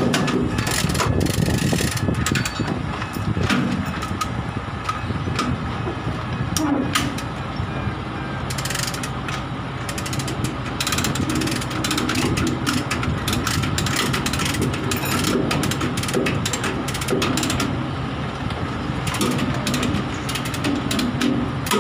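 Chain lever hoist being ratcheted as its handle is pumped back and forth to tension a tie-down chain: rapid, irregular clicking of the pawl that keeps up throughout.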